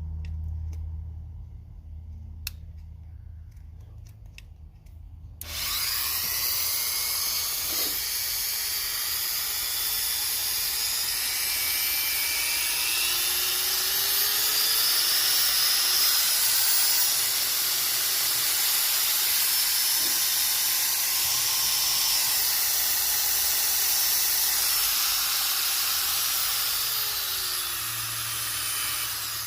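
Wen 1/2 by 18 inch belt sander switched on about five seconds in and running with a steady whine, its pitch rising partway through and falling again near the end, then switched off.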